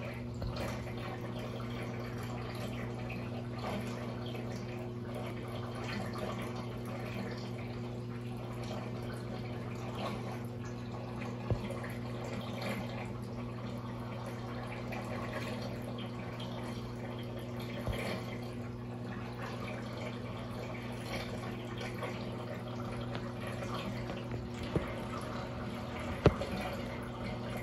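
Aquarium water circulating, trickling and dripping, over a steady low hum. A few sharp clicks cut through it.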